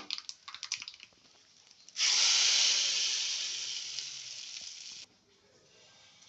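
Hot oil for a tempering (tadka) sizzling, starting suddenly and loudly about two seconds in, fading over about three seconds and then cutting off abruptly.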